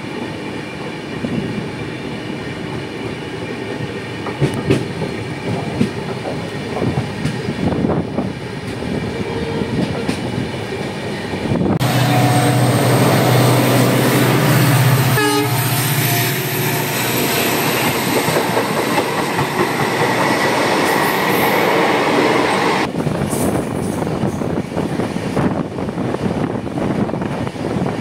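Train wheels running and clicking over rail joints under a moving passenger coach. About twelve seconds in, a diesel locomotive and its coaches pass on the next track, much louder for about eleven seconds. The locomotive's engine drones low and its horn sounds as it goes by.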